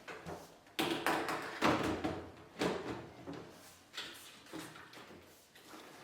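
Irregular knocks and clunks of an integrated dishwasher's cabinet door panel being handled and seated onto the fixing brackets at the bottom of the dishwasher, with short ringing after several of the knocks.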